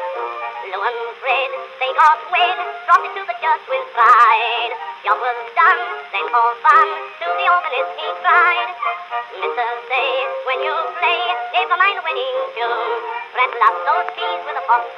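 Background music: a song with a high, wavering sung voice and no bass, running without a break.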